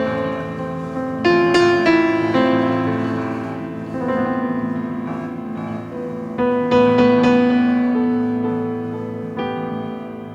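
Piano playing slow, sustained chords, each struck and left to ring and fade before the next, with new chords arriving every one to three seconds.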